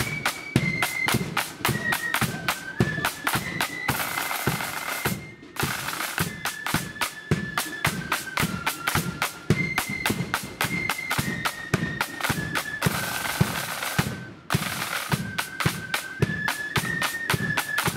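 Marching snare drums and a bass drum playing a quick, steady parade cadence, with two long snare rolls about four and thirteen seconds in, each cut off by a brief stop. A thin high tune steps along over the drums.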